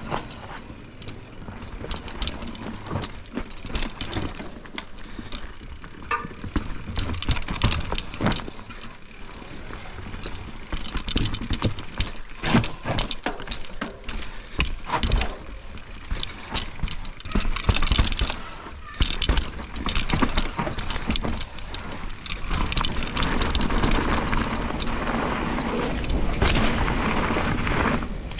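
Mountain bike ridden down a dirt trail: tyres rolling over the ground, with frequent irregular knocks and rattles from the bike as it goes over bumps.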